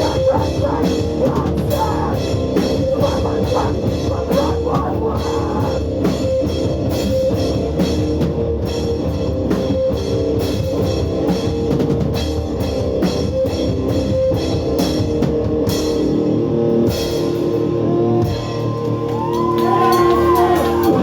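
Hardcore punk band playing live and loud: distorted guitars, bass and fast drums.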